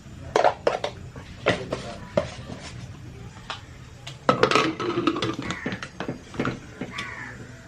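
Cookware and utensils being handled: a series of sharp clicks and knocks of metal pots and spoons, busiest about halfway through.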